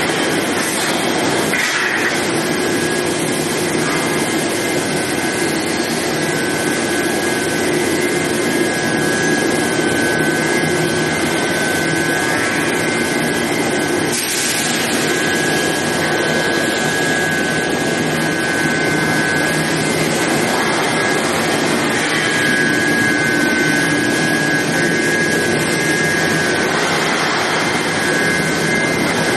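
Medium-frequency induction hardening and tempering line for oil drill pipe running: a steady loud industrial roar with a steady high whine over it.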